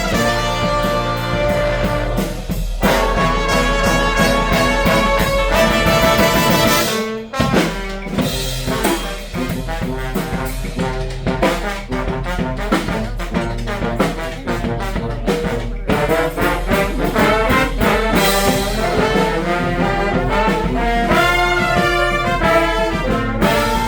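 Street brass band playing live: horns sounding melody and chords over a steady beat, with a brief drop-out about seven seconds in.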